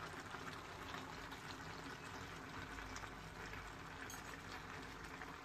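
Chicken and vegetable stew simmering in a metal wok on a gas stove: a faint, steady bubbling.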